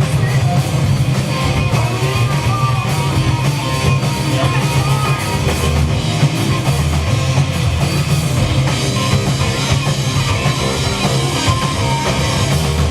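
Rock music: a band playing with drum kit and guitar, steady and unbroken.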